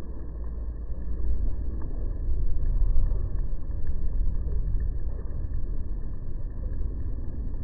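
Low rumble of thunder rolling, swelling about a second in, peaking around three seconds and slowly fading.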